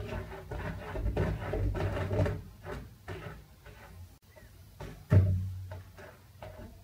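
A cat pawing at and rattling the plastic access hatch in a bathtub's tiled side, a run of clicks and knocks, with one hollow thump from the hatch about five seconds in.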